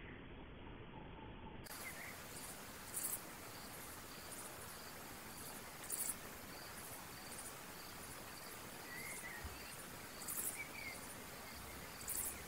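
Crickets chirping steadily, about twice a second, with short louder insect buzzes every few seconds.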